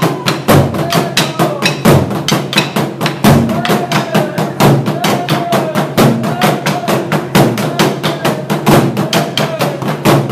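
Burundian ingoma drums, tall wooden drums beaten with sticks by a troupe in a fast, steady rhythm of several strikes a second. Shouted calls rising and falling about once a second ride over the drumming.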